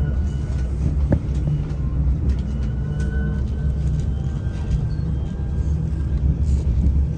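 Moving city bus heard from inside the passenger cabin: a steady low rumble with a faint whine that drifts slightly in pitch, and one light click about a second in.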